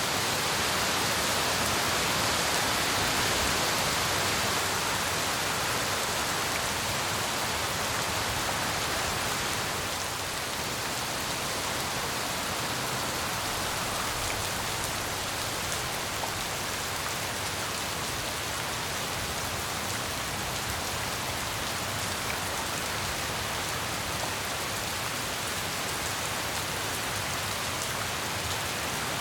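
Tropical rain falling steadily, a dense, even hiss of drops; it eases slightly about ten seconds in.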